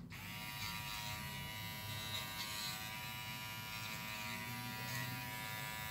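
Cordless pet finishing trimmer switched on and buzzing steadily, its pitch rising briefly as it comes up to speed, while it clips the fur between a dog's paw pads.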